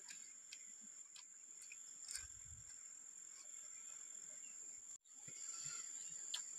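Steady high-pitched buzz of insects, crickets or cicadas, with a few faint clicks and a soft low thump about two seconds in. The sound drops out for an instant about five seconds in.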